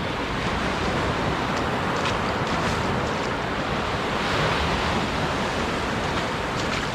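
Surf washing onto a sandy beach: a steady rush of waves that swells a little about four seconds in.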